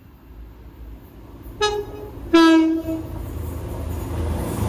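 Class 185 diesel multiple unit sounding its two-tone horn about a second and a half in: a short high note, then a longer, louder low note. Underneath, the train's rumble grows steadily louder as it approaches.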